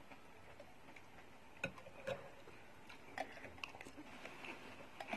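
A metal spoon and fork clinking lightly against a ceramic soup bowl while eating bakso: a handful of short, separate clicks over a quiet background.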